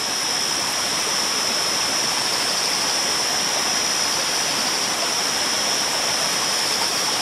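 Steady rush of a small jungle stream flowing over rocks, with a continuous high-pitched whine held over it.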